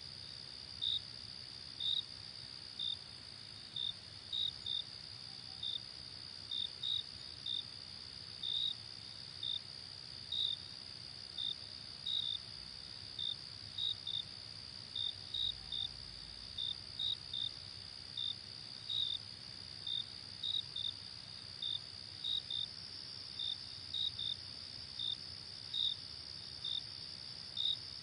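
Night insect chorus of crickets: a steady high-pitched trill, with short chirps repeating irregularly over it about once or twice a second.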